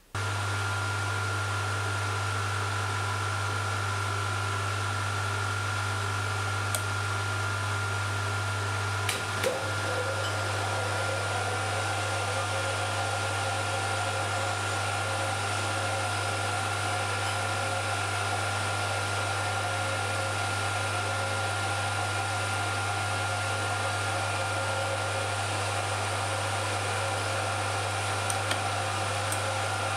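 Motor-driven wheel-cutting setup on a Schaublin 102 lathe running steadily as its cutter cuts teeth in a brass clock wheel: a steady hum with a thin high whine over it, and a few faint ticks.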